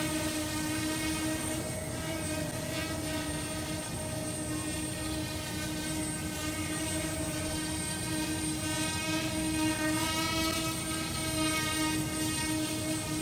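Brushless quadcopter drone's motors and propellers running with a steady high-pitched hum that wavers slightly in pitch.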